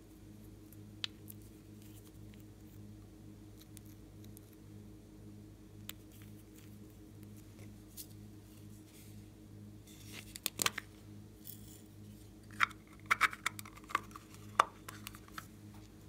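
Small plastic glitter bottles being handled and shaken out: scattered light clicks and taps, a cluster of sharp clicks about ten seconds in, then a run of rattling clicks, over a low steady hum.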